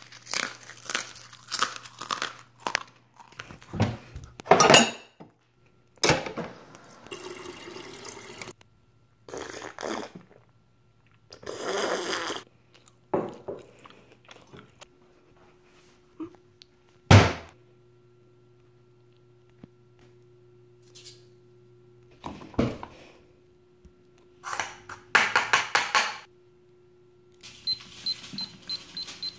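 Kitchen containers and utensils handled on a countertop: a string of separate knocks, clicks and short rustling noises, the loudest knock about halfway through. Near the end a digital kitchen timer beeps quickly several times as its buttons are pressed.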